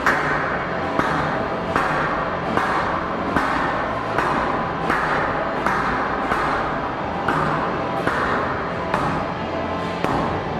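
Squash ball struck by rackets and hitting the court walls in a warm-up rally: sharp knocks repeating about once a second.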